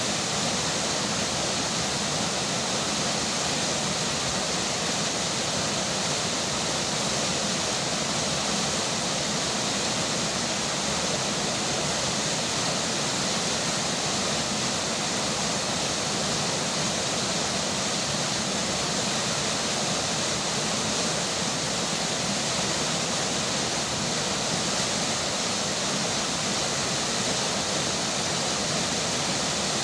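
A river flowing with rain falling, an even, steady rush of water.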